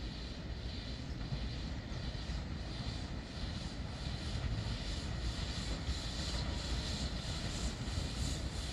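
Pt47 2-8-2 steam locomotive working away under steam, its exhaust chuffing in an even rhythm over a low rumble, growing louder as it draws nearer.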